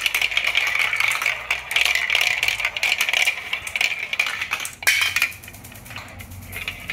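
Glass marble rolling and rattling along a plastic marble-run chute. A sharp clink comes about five seconds in, after which the rolling goes fainter.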